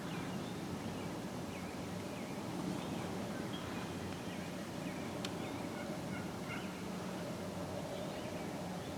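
Faint wild turkey calling over steady outdoor background noise, with a single sharp click about five seconds in.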